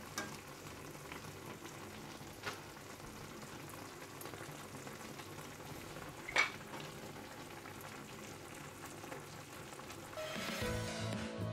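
Mutton and halved tomatoes sizzling steadily in oil in a karahi, with a few sharp clicks of metal tongs against the pan, the loudest about six seconds in, as the skins are pulled off the softened tomatoes. Background music comes in near the end.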